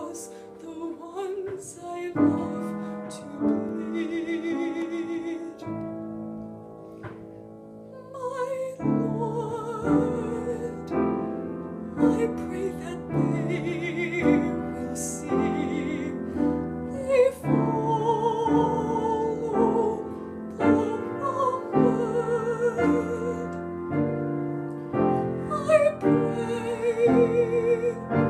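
Classical-style song: piano accompaniment with a voice holding long vibrato notes, softening briefly about a quarter of the way in before building again.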